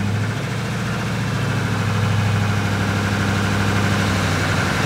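2016 Chevy 3500 diesel engine, cold, raised from idle and held at about 1500 rpm: a steady low running note that grows a little louder over the first couple of seconds, then holds.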